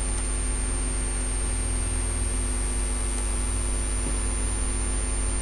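Steady electrical hum with a thin high whine, unchanging throughout: the recording's background noise between spoken words.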